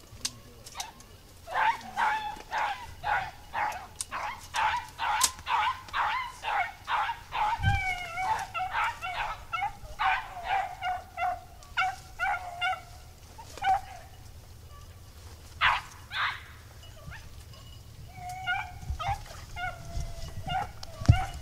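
Pack of beagles baying as they run a rabbit's track: a fast string of sharp, pitched barks about two a second that thins out past the middle, then picks up again in a short burst near the end.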